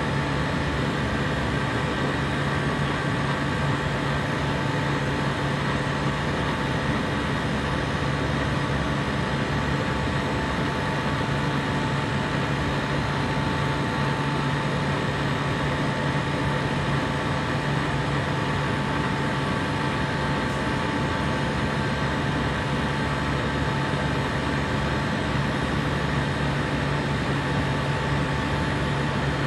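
A compressor running steadily, a constant mechanical hum with a low drone and a few fixed higher tones.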